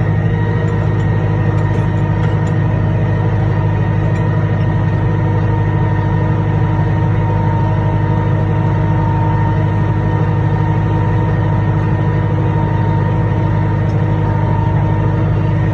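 Farm tractor engine running steadily under load while pulling a rear-mounted implement along the field rows: an even, loud drone with a strong low hum and a few steady tones above it.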